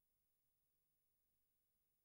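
Near silence: an empty soundtrack with only a faint, steady hiss.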